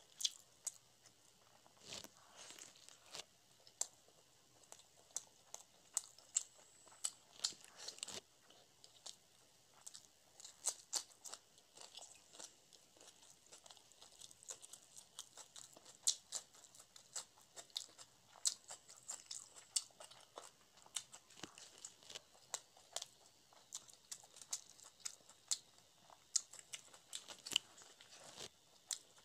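A person chewing and smacking soft fried porota bread dipped in chana masala, close to the microphone. It is a dense, irregular run of small sharp mouth clicks that goes on without a break.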